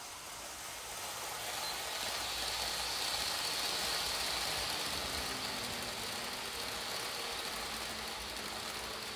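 N gauge model train running on its track: a steady rushing hiss of motor and wheels on the rails that grows louder over the first three or four seconds as the train comes closer, then eases slightly.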